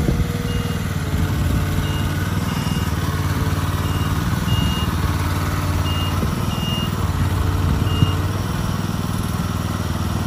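Gasoline engine of an IMER Gerris 800 tracked concrete placing boom running steadily under load, powering the hydraulics as its outriggers are raised slowly. Short high beeps sound at irregular gaps of about half a second to a second and a half, with a single sharp click about eight seconds in.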